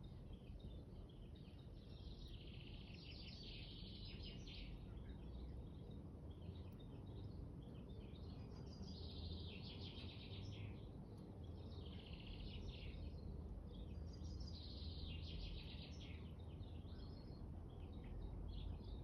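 Birds chirping and trilling in repeated bursts of a second or two, over a steady low rumble.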